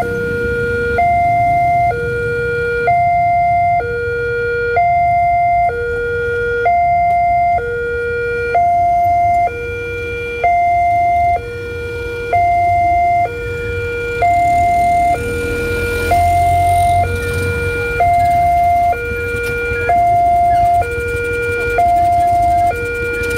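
Automatic railway level-crossing warning siren from a VIALIS speaker: an electronic two-tone alarm that alternates steadily between a lower and a higher tone about once a second, warning of an approaching train.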